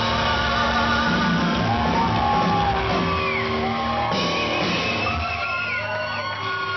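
Live rock band playing: electric guitars, drums and singing, with pitched lines sliding up and down. The level eases off slightly near the end.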